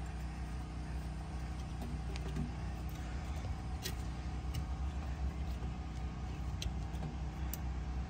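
A steady low mechanical hum, like a motor running, with a few faint light clicks from the metal pressure switch being turned by hand on its threaded nipple.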